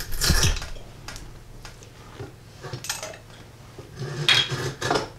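Drawknife shaving a wooden broom handle clamped in a shaving horse: separate, irregular scraping strokes of the blade along the wood, with the strongest at the start and again about four seconds in.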